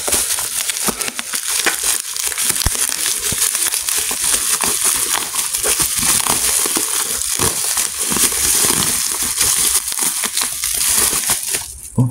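Plastic bubble wrap being handled and pulled off a package, crinkling and crackling without a break.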